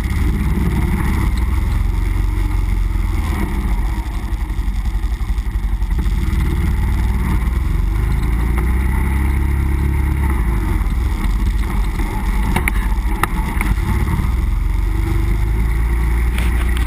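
Nissan Pathfinder driving off-road, its engine running with a heavy, steady low rumble. A couple of sharp knocks come about three-quarters of the way through.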